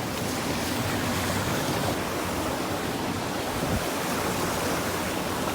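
Steady rush of fast-flowing creek water over rocks at a waterfall.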